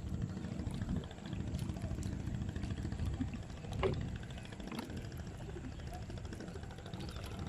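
Water sloshing and splashing around a man wading waist-deep as he handles a ring-net trap, over a steady low rumble. A short high-pitched sound stands out about four seconds in.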